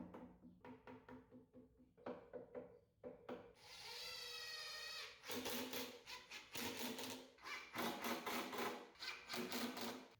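Hand tool work on plywood: repeated rubbing and scraping strokes. About four seconds in, a short steady power-tool whine comes in, and fast dense strokes follow it.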